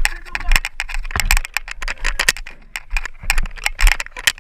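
A dense, irregular clatter of sharp clicks and knocks, several a second at uneven spacing.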